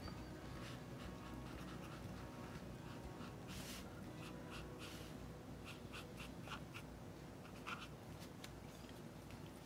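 Faint scratch and swish of a Tombow brush pen's strokes on drawing paper: one longer stroke a little over three seconds in, then a run of short strokes.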